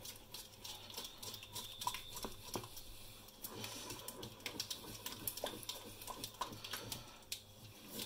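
Wooden spoon stirring a thickening white sauce in a stainless steel saucepan, scraping and knocking against the pan with many irregular small clicks.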